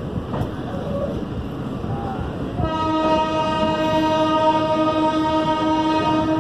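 Indian Railways train horn sounding one long steady blast, starting a little under three seconds in and held for about four seconds, over general station platform noise.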